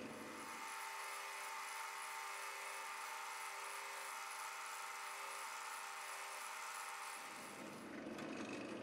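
Bench drill press running steadily, spinning a Scotch-Brite pad on a flat-ended tool that is pressed down onto scrap aluminium to buff overlapping circular swirl marks (engine turning).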